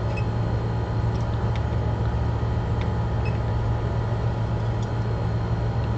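Steady low electrical hum with a light hiss, and a few faint clicks scattered through it.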